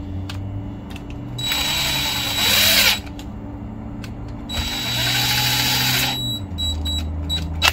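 Cordless drill/driver running the oil pump's mounting screws into a chainsaw's housing in two bursts about three seconds apart, each about a second and a half long with a motor whine. The first stops abruptly as its screw seats.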